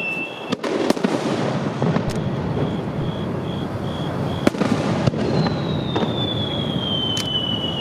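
Aerial fireworks shells bursting overhead: a series of sharp bangs over a dense crackle. About five seconds in, a long whistle begins, sliding slowly down in pitch.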